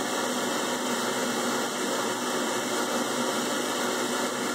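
CNC machine spindle running steadily while its fine engraving bit cuts a groove into a flat plate, a steady whirring hiss with a faint low hum.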